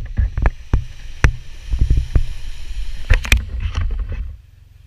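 Wind buffeting the microphone with sharp knocks and splashing as a Subaru wagon drives through a muddy water-filled hole. The noise stops abruptly about four seconds in.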